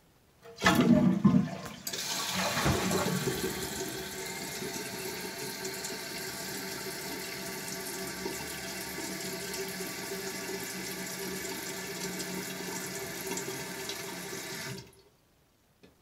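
1993 Kohler Wellworth Lite toilet flushing: a loud rush of water starts about half a second in, settles into a steady rushing as the tank empties and refills, and stops abruptly near the end.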